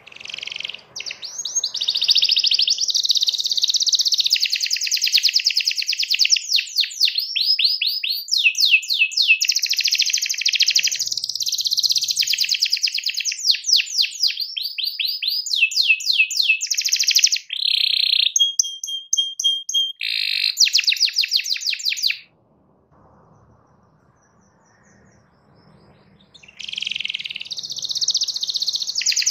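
Domestic canary singing a long, loud song of fast trills and rolls, one run of repeated notes straight into the next. The song breaks off about three quarters of the way through for a few seconds, then starts again.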